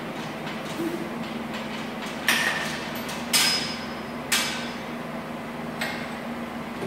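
Steel weight stack of a cable machine clanking as the set ends: three sharp metallic clanks about a second apart, each ringing briefly, then a lighter click near the end.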